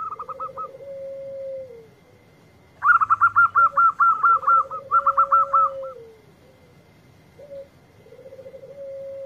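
Zebra dove singing its rolling coo three times: a short note, a quick trill, then a long held note that falls away. A louder, higher-pitched bird calls in a rapid run of repeated notes, briefly at the start and again for about three seconds from three seconds in.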